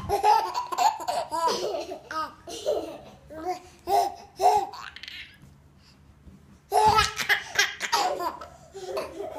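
A baby laughing in quick runs of high-pitched giggles as it is bounced in a bouncer seat. The laughter stops about five seconds in, then breaks out again about a second and a half later.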